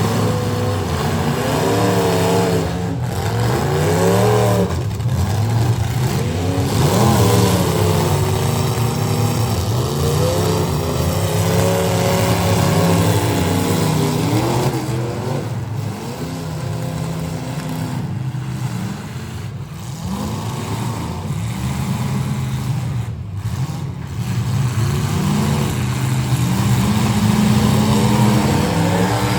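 Several full-size demolition derby cars' engines revving and accelerating, with their pitch rising and falling over and over as the cars drive and push around the arena.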